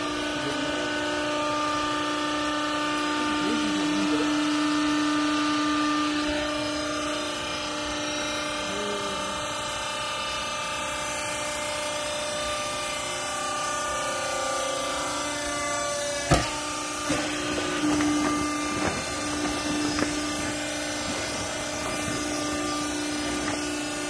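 Hydraulic power unit of a vertical clothing baler running with a steady hum, pitched and even. About sixteen seconds in there is a single sharp knock, followed by a few lighter knocks.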